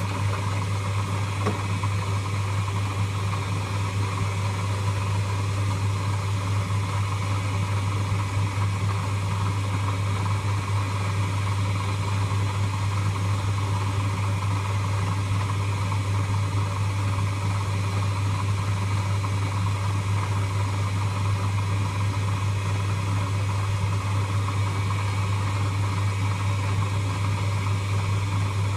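Lathe running steadily: a constant low motor hum with an even hiss above it, starting just before and holding unchanged, with no cutting strokes or speed changes.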